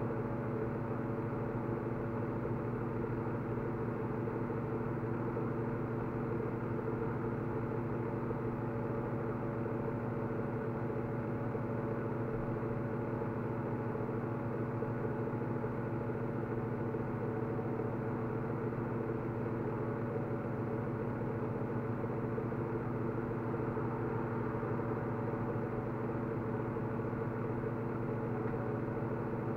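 Steady mechanical hum at a fixed pitch, unchanging throughout.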